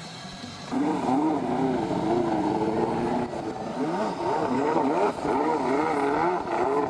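Stand-up jet ski's two-stroke engine coming in loud a little under a second in and running hard, its pitch swinging up and down again and again as the throttle is worked.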